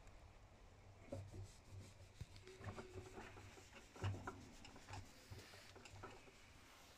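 Near silence: faint scattered rubbing and a few light taps over a low steady hum.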